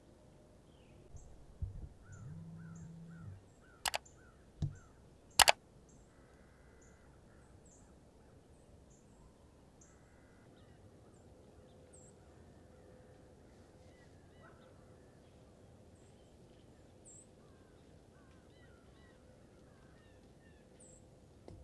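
Quiet outdoor ambience with faint, scattered bird chirps and calls, including a quick run of short falling calls about two to four seconds in. A few sharp clicks around four and five seconds in are the loudest sounds.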